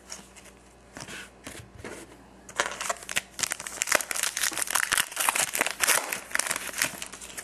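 Foil trading card pack wrapper crinkling as it is handled and torn open: a few light rustles at first, then dense crackling from about two and a half seconds in.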